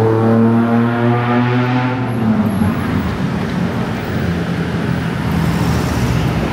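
Road traffic: a vehicle engine drones steadily for about the first two seconds, then fades into general traffic noise.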